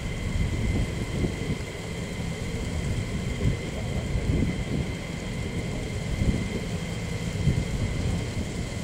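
Twin jet engines of a USAF F-15E Strike Eagle idling on the ground: a steady low rumble with a constant high turbine whine.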